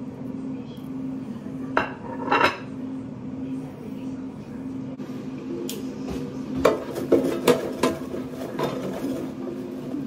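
Crockery and cookware clattering while food is plated: two knocks about two seconds in, then a run of clinks and knocks from plates, a pot and an air fryer basket between about six and a half and nine seconds, over a steady low hum.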